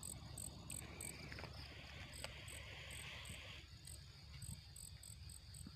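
Faint night insects chirping: short high chirps repeating about three times a second over a steady high hum, with a lower continuous trill joining from about a second in until about three and a half seconds in.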